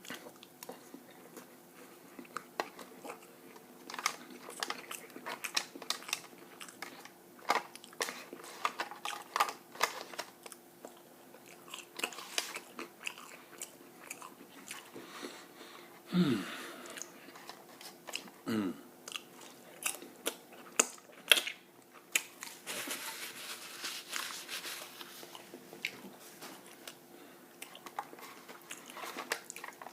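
Close-miked chewing and biting: a person eating, with wet mouth clicks and crunches in an irregular stream. Twice midway a short sound slides down in pitch, and a little later comes a few seconds of soft hissing noise.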